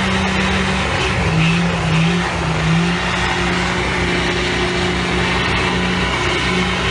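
Pickup truck engine revving hard while the truck spins donuts in the street, under a wash of noise. The engine note holds mostly steady, dipping twice in the first few seconds.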